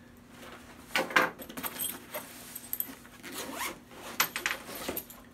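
Zipper on a fabric tool bag being pulled open in several short rasping runs. The first comes about a second in, and more follow from about three seconds on.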